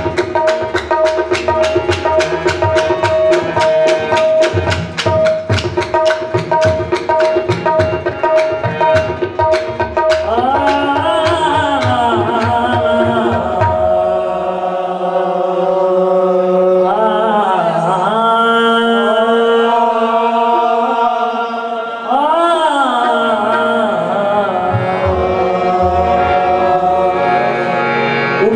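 Qawwali music: fast tabla playing over a steady harmonium drone. About ten seconds in a solo voice enters with long, gliding sung phrases, and the tabla drops out a few seconds later, leaving voice and harmonium.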